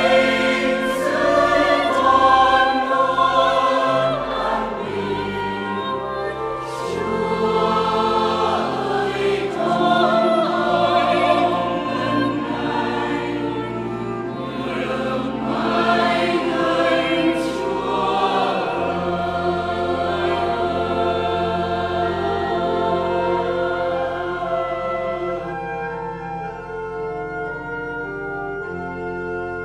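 Mixed choir singing a hymn over held pipe organ chords with changing bass notes. Near the end the voices drop out and the sustained chords carry on.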